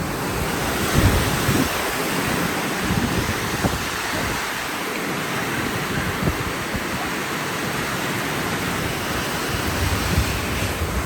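Strong tropical storm wind blowing in gusts, with a steady rush of noise and the wind buffeting the microphone in low thumps several times.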